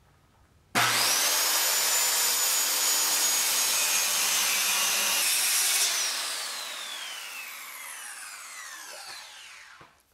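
Circular saw starting sharply and running steadily for about five seconds as it cuts into a laminated wooden timber, hogging out its interior in a shallow pass. It is then released, and the blade winds down with a falling whine over about four seconds.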